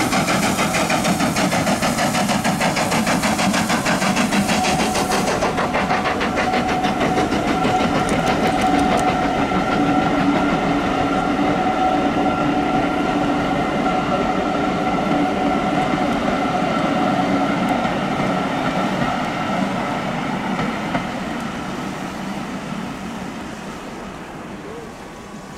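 Jacobite steam train, hauled by LNER K1 locomotive 62005, passing close by. The locomotive chuffs fast for the first few seconds, then the coaches roll past with a steady ringing from the wheels. The sound fades as the train draws away near the end.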